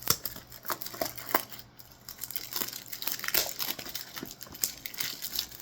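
Perfume box packaging being opened by hand: irregular crinkling and tearing with small crackles and clicks.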